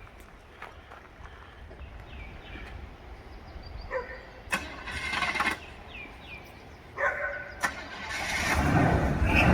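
Car engine being cranked in short tries, then catching and running from about eight seconds in, growing louder. Faint short chirps come before it.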